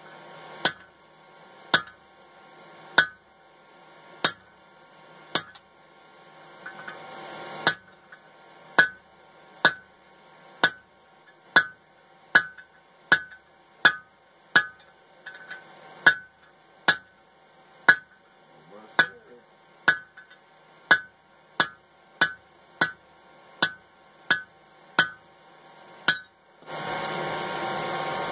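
Hand-hammer blows on red-hot coil-spring steel on an anvil, each with a short metallic ring, as the bar is drawn out to a taper. The blows come about once a second at first and quicken to about three every two seconds. Near the end the hammering stops and a steady rushing noise takes over.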